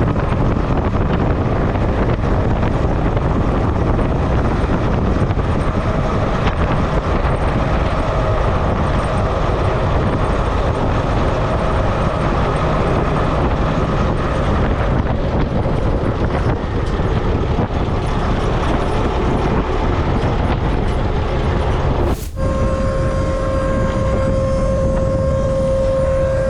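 Tractor engine running steadily under load, a dense low rumble. About 22 seconds in it breaks off abruptly and comes back with a steady high whine over it.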